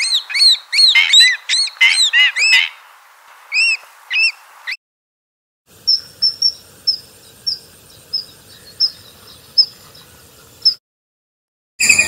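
Wood sandpiper calling: a rapid run of sharp, arched notes, then a few paired notes, cutting off abruptly about five seconds in. After a second of silence, common kingfisher calls follow: thin, high single notes repeated about every half second over a faint hiss, stopping abruptly about a second before the end.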